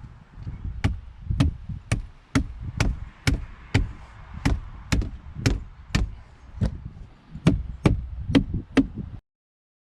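A steady run of about sixteen sharp knocks, roughly two a second, as a part is tapped into place in a boat-seat base during assembly. The knocking stops abruptly near the end.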